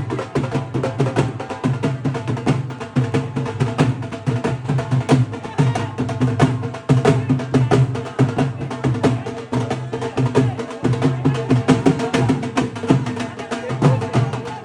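Music with fast, continuous drumming: rapid drum strokes over a steady low drone.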